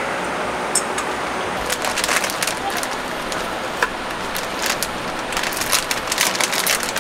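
Heavy rain falling on a camping tarp: a steady hiss with scattered drop hits that grow denser over the second half.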